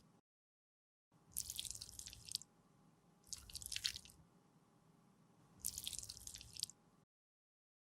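Three short bursts of fine crackling as makeup product is worked by hand or tool, each about a second long with a pause between. The sound cuts off suddenly near the end.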